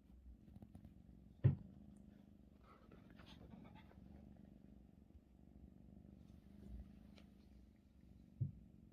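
Faint soft rustling of a blanket being kneaded by a Russian Blue cat, with two short dull thumps, one about a second and a half in and one near the end.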